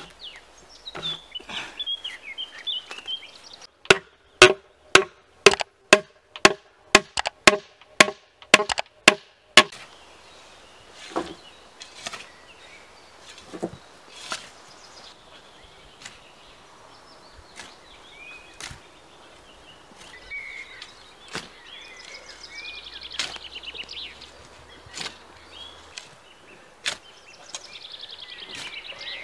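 A rapid, even run of some fifteen sharp, ringing wooden knocks, nearly three a second, from about four to ten seconds in: a tool striking a log. After it come scattered softer knocks from a shovel digging soil, with birds chirping now and then.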